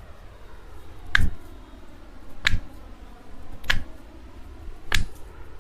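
Four sharp snaps, evenly spaced about a second and a quarter apart, from hands-on chiropractic treatment of the back.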